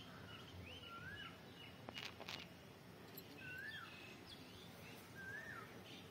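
Faint birdsong: a quick run of short rising chirps at the start, then a few separate wavering calls. Two sharp clicks come about two seconds in.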